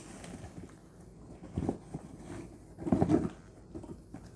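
Silicone push-pop fidget toy being handled and pressed, giving two short clusters of soft pops about a second and a half apart.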